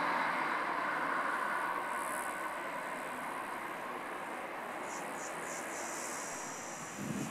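Airbus A320 jet engines running as the airliner rolls out down the runway after touchdown, a steady roar that slowly fades as it moves away.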